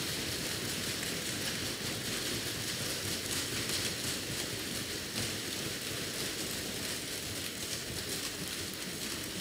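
Assembly members applauding by thumping their desks: a dense, steady patter of many knocks.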